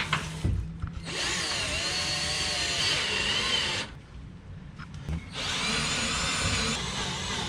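Handheld power tool driving bolts in two runs of a few seconds each, its motor whining with a wavering pitch.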